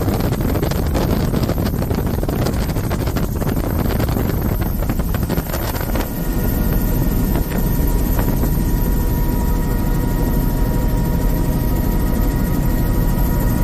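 Helicopter in flight, heard from inside the cabin: a loud, steady rotor and engine drone. About six seconds in the sound shifts and a steady high whine joins the drone.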